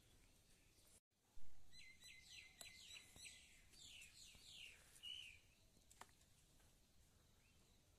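Birds chirping: a quick run of short, high, downward-sweeping notes, several a second, from about two seconds in, with a few more calls until about five seconds in. Just before them, about a second in, the sound briefly drops out and a dull thump is heard. The calls are faint.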